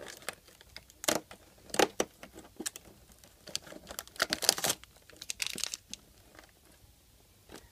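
Cardboard advent calendar door being pried and torn open by fingers: a string of sharp cardboard snaps and short tearing, crinkling scrapes, busiest around four to five seconds in.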